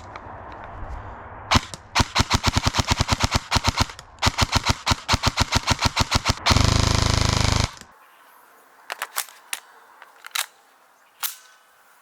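Krytac M4 airsoft electric rifle firing: a single shot, then two long runs of rapid, evenly spaced shots, then a solid burst of about a second that runs together into one continuous rattle. A few scattered faint clicks follow near the end.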